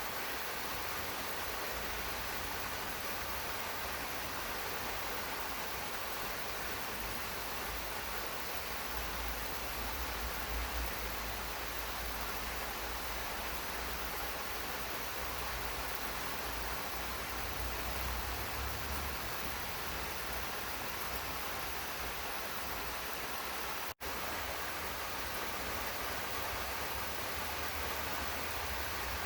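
Steady rain falling in a garden, an even hiss with a low rumble underneath. It cuts out for a split second near the end, then resumes unchanged.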